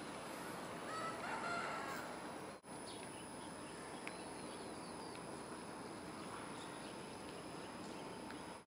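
Steady outdoor background hiss with a rooster crowing once about a second in. Faint short bird chirps follow, and the sound briefly cuts out between the crow and the chirps.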